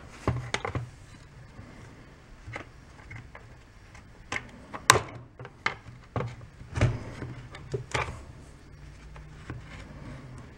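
Scattered clicks, taps and scrapes of a metal pry bar and Allen key working against the plastic handle and housing of a Husqvarna 350 chainsaw, the sharpest click about five seconds in, over a faint low steady hum.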